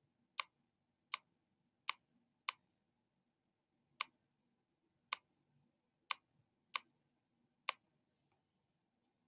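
Sharp single clicks, about nine at uneven intervals of roughly half a second to a second, from a stylus tapping the screen of a tablet as numbers are written by hand.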